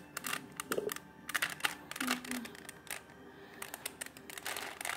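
Plastic Rubik's cube being twisted by hand, its layers clicking and clacking in several quick runs of clicks.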